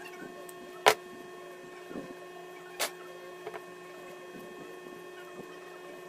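A serrated steel knife blade clicking sharply against a phone circuit board twice, once loudly about a second in and again near the three-second mark, while rust is cleared from the board's connections. A steady electrical hum with several fixed tones runs underneath.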